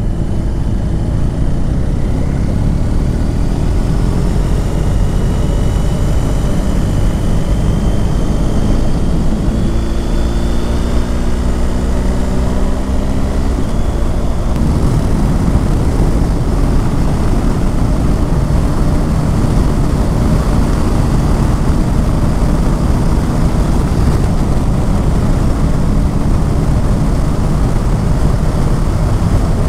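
A motorcycle riding at speed, with heavy wind and road rush over the engine. The engine note climbs slowly over the first half, then drops out about halfway through, leaving only the steady wind rush.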